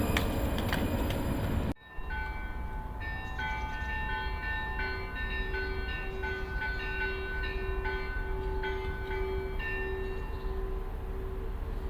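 Church bells ringing: a loud, dense clangour of many bells cuts off abruptly just under two seconds in. A new passage of several smaller bells follows, struck in a quick repeating pattern over a lower bell sounding about every half second.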